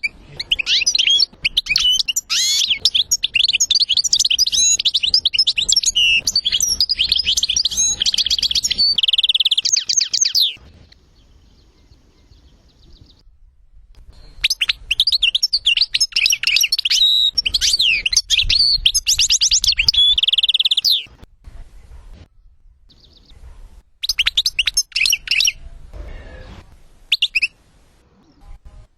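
European goldfinch song: fast twittering phrases with buzzy trills, in two long bouts with a pause between them and a couple of short bursts near the end.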